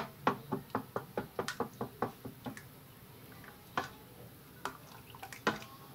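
Metal spoon stirring thick semolina (rawa) batter in a metal bowl, clicking against the bowl in a quick run of about five or six knocks a second, then only a few scattered knocks in the last three seconds.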